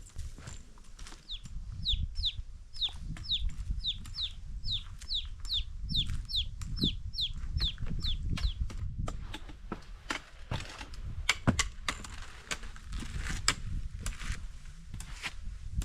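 A forest songbird calling a long series of short, repeated notes that slide downward, about two or three a second, for some seven seconds. In the second half it gives way to sharp crunches and clicks over a low rumble.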